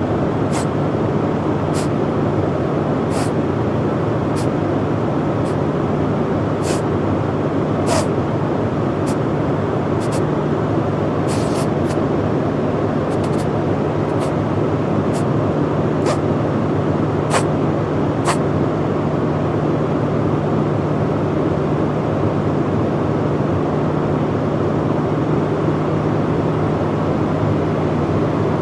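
Steady airliner cabin noise with a low drone, and a man sniffling: about twenty short, sharp sniffs at uneven intervals, stopping about two-thirds of the way through. The sniffing is the sign of a cold or illness.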